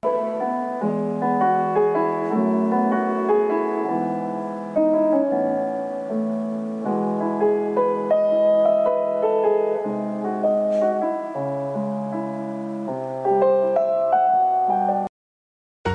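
Background piano music, a steady run of notes and chords that cuts off suddenly near the end.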